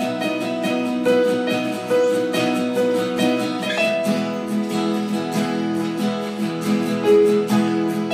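Acoustic guitar strumming chords along with a Casio electric keyboard holding sustained notes, an instrumental jam; the chord changes about four seconds in.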